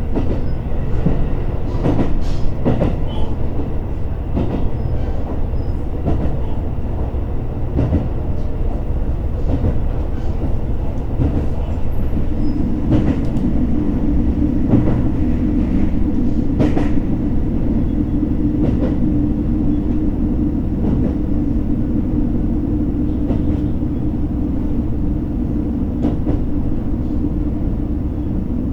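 Interior running sound of a JR Hokkaido H100 diesel-electric railcar: a steady rumble with wheels clicking over rail joints, as the train nears a station stop. About twelve seconds in, a steady low hum from the drive comes in and holds.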